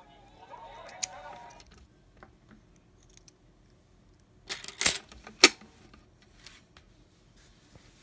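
Metal coins clinking in the hand, with a faint ringing rattle at the start. About halfway through comes a quick cluster of loud, sharp clattering clicks as a handful of coins drops into a clear plastic coin-sorting bank.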